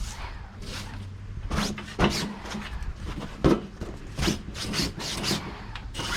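Broom sweeping a porch floor: a run of quick, irregular bristle scrapes, with one louder knock about halfway through.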